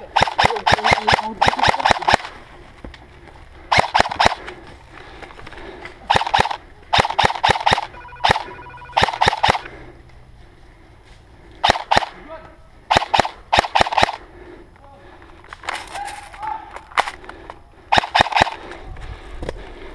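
Airsoft rifle firing in short full-auto bursts: about ten bursts of rapid clicking shots, separated by pauses of a second or two.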